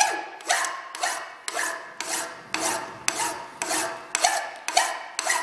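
Flat hand file being stroked across the end of a small steel screw clamped in a vise's copper soft jaws, shortening it: a steady run of rasping strokes, about two a second.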